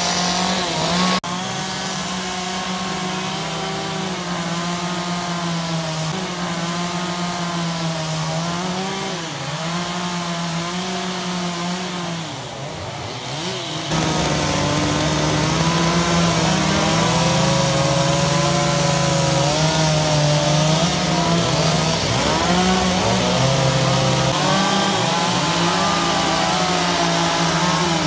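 Two-stroke chainsaw running and cutting wood, its engine pitch rising and falling as it bogs and revs under load. There is an abrupt click about a second in, and the sound gets louder from about halfway through.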